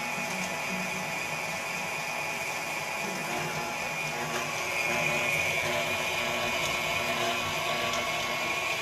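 KitchenAid stand mixer running steadily at a low speed setting, driving its shredder attachment as a block of cheese is pushed through and shredded: an even motor hum and gear whine.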